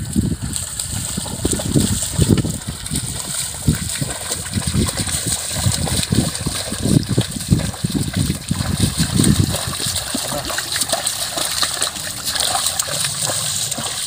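Two bullocks' hooves and a wooden plough splashing and squelching through the flooded mud of a paddy field. There are irregular heavy splashes, about one or two a second, over a steady hiss.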